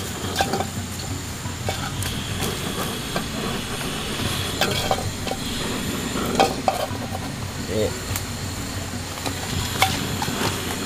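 Wood fire burning in an earthen stove: a steady hiss with scattered sharp crackles and pops.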